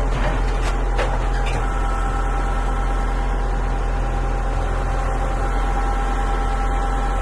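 Wood-Mizer LX55 band sawmill's engine running steadily, with a steady high whine over it and a few sharp clicks in the first second and a half.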